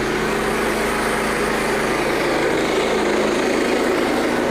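Small gasoline engine of a Frontier OS27 portable bandsaw mill running steadily at an even speed.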